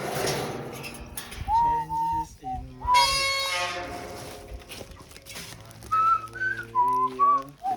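A whistled melody in short gliding notes over a sustained low accompaniment, part of a music track. About three seconds in comes a loud, bright note rich in overtones.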